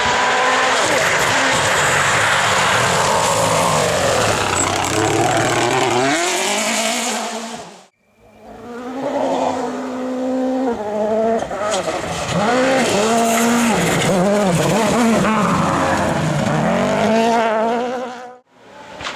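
Rally cars driven flat out on a stage, engines revving up and down through gear changes as they pass. The sound drops out briefly about eight seconds in and again near the end, between passes.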